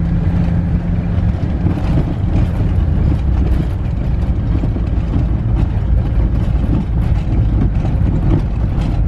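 A vehicle driving at road speed, its engine and road noise running steadily and loud; a steady low hum underneath drops out about a second in.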